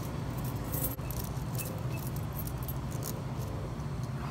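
Light clinking and rattling of items being handled at a shop counter over a steady low hum, with a few faint short beeps.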